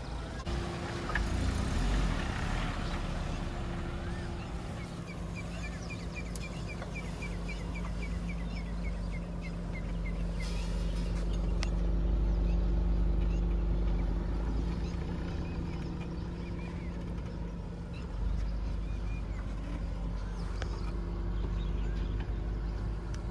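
Suzuki Jimny's engine running at low revs as it crawls down a rutted dirt trail, a steady hum that swells briefly in the middle. Partway through, a bird gives a quick run of short chirps.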